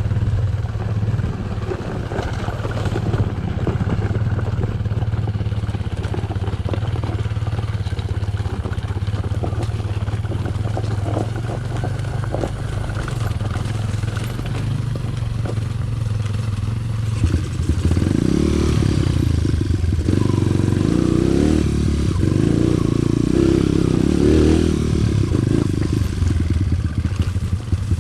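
Dirt bike engine running steadily under way, with rattling and clatter from the bike over rough ground. About two-thirds of the way in the engine grows louder and its pitch rises and falls as it is revved.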